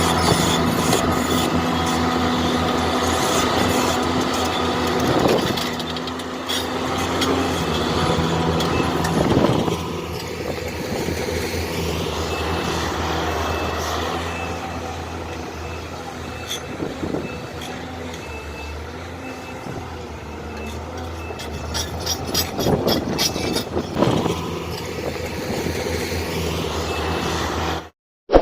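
Hyundai Robex 480LC-9S excavator's diesel engine running steadily with hydraulic working noise and scattered clanks. Twice a repeating high-pitched warning beep joins in. The sound cuts off abruptly near the end.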